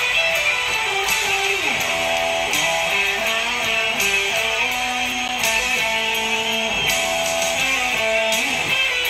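Les Paul-style solid-body electric guitar playing a single-note melody, with notes sliding down the neck every few seconds.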